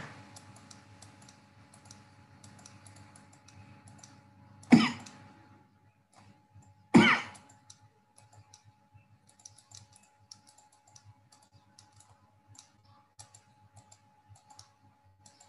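A man coughing twice, about two seconds apart, the coughs at about five and seven seconds in. Between and after them come many faint short clicks from a stylus on a writing tablet as handwriting is drawn.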